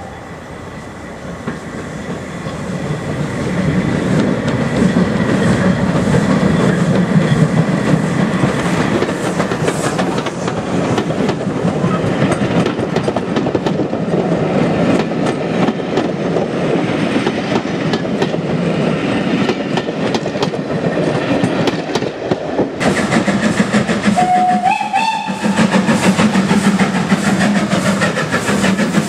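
Steam-hauled train of coaches rolling through the station, wheels clattering over the rail joints and growing louder over the first few seconds. After a cut, Fowler 4F 0-6-0 steam locomotive No. 43924 runs in, with a short rising whistle near the end.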